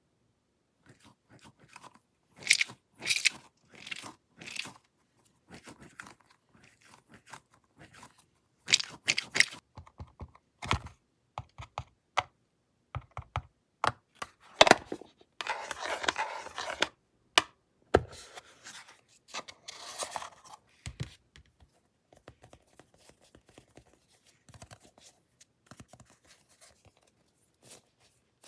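Hands working a small squishy fidget toy and crinkly plastic: irregular crunching, crinkling and tearing sounds with scattered sharp clicks, most dense about halfway through.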